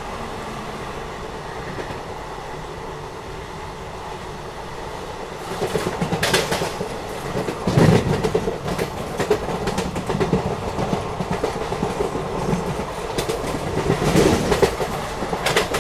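Track sound of ICF passenger coaches running at speed: a steady rumble of wheels on rail that grows louder about five seconds in, with a rapid clickety-clack and heavier bursts of clattering.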